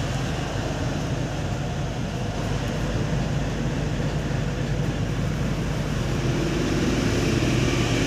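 Steady low background hum, even and unbroken, with no distinct clicks or beeps.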